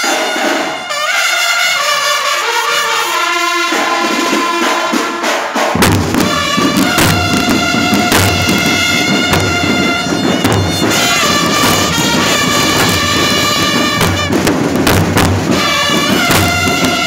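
Marching band playing: the brass section (trumpets and trombones) carries the tune alone at first, then about six seconds in the bass drums and cymbals come in with a steady beat under the horns.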